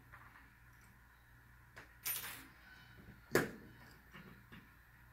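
Hands working a mouse-trap spring mechanism fitted to a plastic arm: a short scrape about two seconds in, then one sharp click about three and a half seconds in, followed by a few faint ticks.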